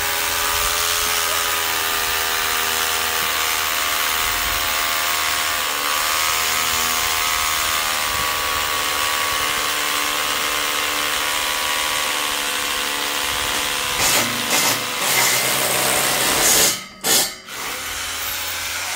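Cordless hammer drill boring into concrete at a railing post's base plate, running steadily at a constant pitch, then stopping and restarting twice near the end.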